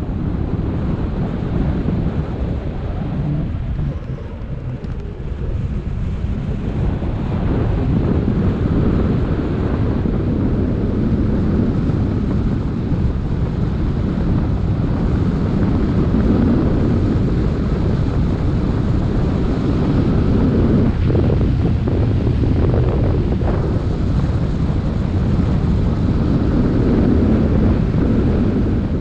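Wind rushing over the microphone of a camera mounted on a hang glider in flight: a steady, heavy, low rumble of airflow that dips briefly about four seconds in, then grows louder.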